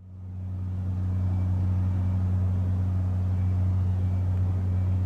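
Leonardo AW139 twin-turboshaft helicopter running on the ground with its main rotor turning: a steady low drone that fades in over the first second and then holds level.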